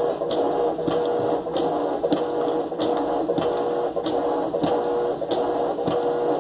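Electrolux LTE12 top-loading washing machine agitating a full load of clothes in water: a steady motor hum with a regular stroke of the agitator about every 0.6 seconds, sloshing the wash.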